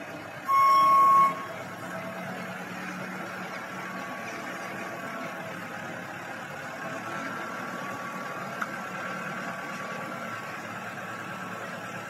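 A single horn blast lasting under a second, just after the start, over the steady running of an FDI-Sambron telescopic handler's engine. There is a brief sharp tick about two-thirds through.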